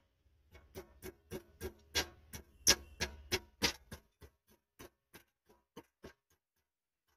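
Screwdriver tip scraping calcium scale off the stainless steel floor of a drum-type sterilizer around its heating-coil hole. It goes in short strokes, about three or four a second, and after about four seconds they come sparser and fainter.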